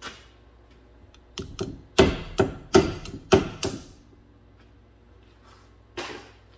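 Ball-peen hammer tapping a rear differential side bearing cap back into place on the axle housing: a quick run of metal strikes over about two and a half seconds, with single knocks at the start and near the end.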